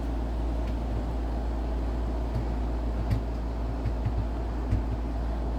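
Steady low hum and hiss, broken by a few soft clicks about three, four and nearly five seconds in.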